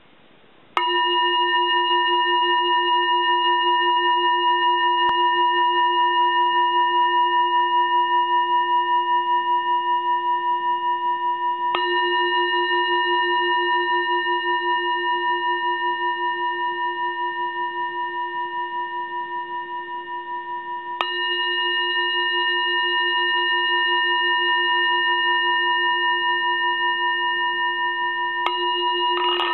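Tibetan singing bowl struck with a mallet four times, each strike renewing a long, wavering ring: a low hum with several clear higher overtones that slowly fades between strikes.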